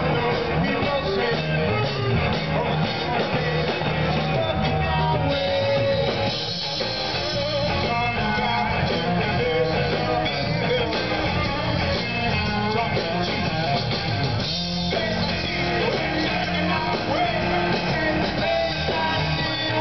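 Live blues-rock band playing: electric guitar, bass guitar and drum kit, amplified through the stage PA.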